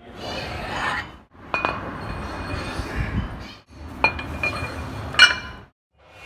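Cast-iron weight plates being handled and slid onto a steel barbell sleeve: metal scraping on metal, with sharp clinks that ring briefly about a second and a half, four and five seconds in.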